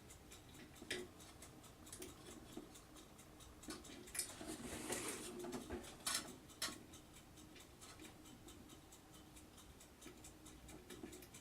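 A few faint clicks and a brief scraping rustle about four to five and a half seconds in, from a small plastic fan cable connector being worked against a motherboard's fan header pins, which it is not yet going onto.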